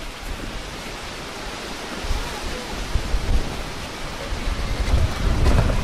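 Wind buffeting the microphone: a steady rushing noise with low rumbling gusts, stronger about two seconds in and again near the end.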